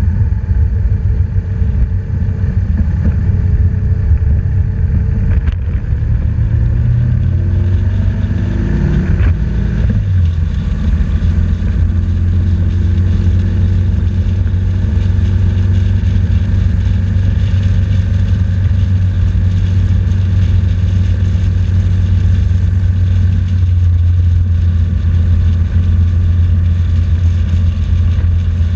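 BMW R1200GS boxer-twin engine under way, rising in pitch as it pulls, then dropping abruptly about nine seconds in and running steadily after, over a heavy low wind rumble on the bike-mounted microphone.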